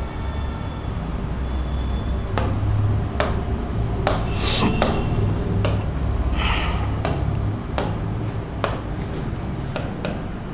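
A stylus tapping and clicking against an interactive display board's screen as figures are written, about a dozen sharp taps scattered through, with a couple of brief hisses and a steady low hum underneath.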